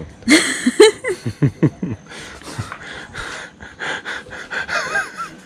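A person's breathy vocal sounds: a quick run of short, falling-pitched cries in the first two seconds, then breathy gasps and panting.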